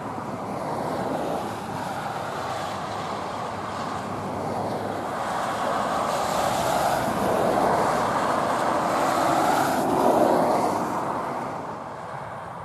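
Road traffic passing on a wet highway: a steady tyre hiss that swells and fades as vehicles go by, loudest about ten seconds in.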